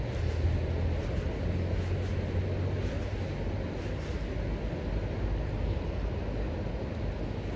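Steady rush of flowing river water with a deep rumble underneath.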